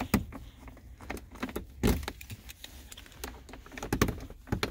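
Car keys jangling and clicking at the centre-console ignition of a Smart fortwo, with a few sharp knocks of handling scattered through.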